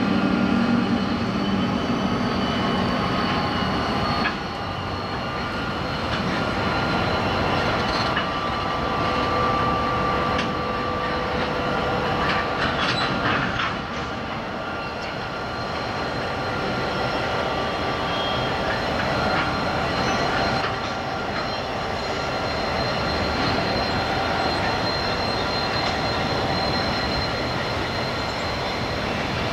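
Diesel-electric freight locomotives of the 82 and 81 classes passing, their engine rumble dropping away about four seconds in, followed by a long rake of coal hopper wagons rolling by with steady wheel squeal and a few clanks of wheels over rail joints.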